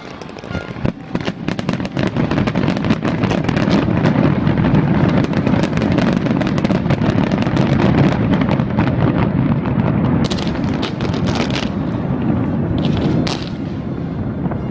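Fireworks display going off: a dense barrage of rapid cracks and bangs from about a second in, building into a continuous rumbling crackle, with fewer, separate sharp cracks near the end.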